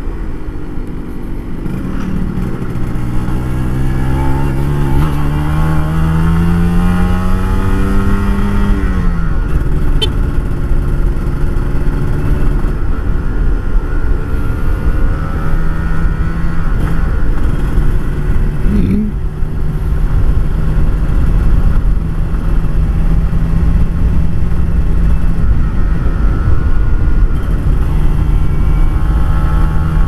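Kawasaki Ninja RR 150 two-stroke single-cylinder engine running loud through an aftermarket racing exhaust. Its revs climb for several seconds, fall away about nine seconds in, then hold a steady pitch for the rest of the time, with a brief wobble a little past halfway.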